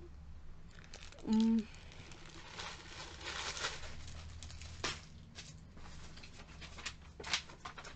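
Plastic product packaging rustling and crinkling as bagged items are handled and put aside, with a few sharp light clicks and taps.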